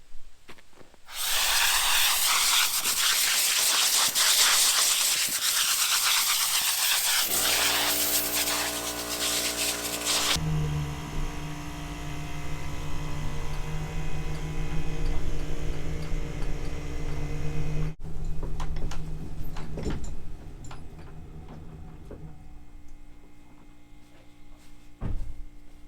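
A loud, steady rushing hiss for about nine seconds, then an engine running with a steady hum. The sound breaks off sharply about eighteen seconds in and is quieter over the last few seconds.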